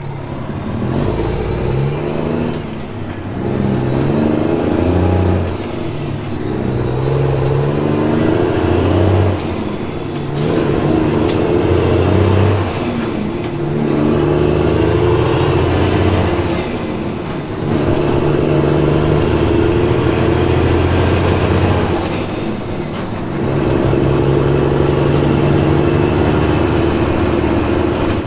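Peterbilt 379 dump truck, loaded to about 52,860 lb, pulling away and accelerating up through the gears. The engine note climbs and drops back at each of several shifts, with a high whistle rising and falling alongside it.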